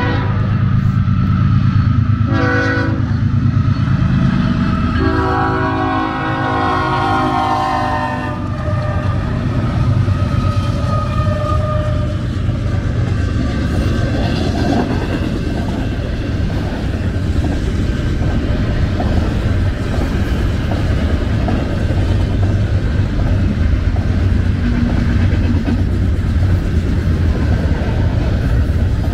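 Freight train's diesel locomotive horn: the end of a long blast, a short blast about two seconds in, and a final long blast from about five to eight seconds in, the grade-crossing signal pattern. The locomotives and intermodal cars then rumble and clatter steadily past on the rails.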